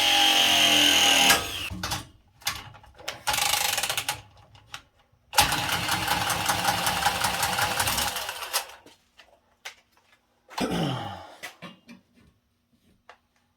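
Power tool run in several bursts: a first run that stops about a second and a half in, a short burst, a longer run of about three seconds with a fast rattle, and a brief last burst whose pitch falls as the motor winds down.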